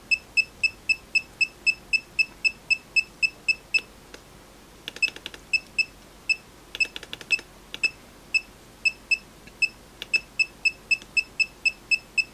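Continuity beeper of a Kaiweets ST120 pen multimeter giving short, high beeps about four times a second as a tester sends it repeated continuity pulses. The beeps drop out for stretches in the middle while the pulse length is being raised, where the pulses are too short to trigger the meter reliably. Two brief bursts of rapid clicking fall in those gaps.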